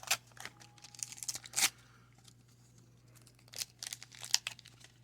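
Wax-paper wrapper of a 1990 Donruss baseball card pack being torn open and crinkled in short, irregular rustles, loudest about a second and a half in and again a little past four seconds.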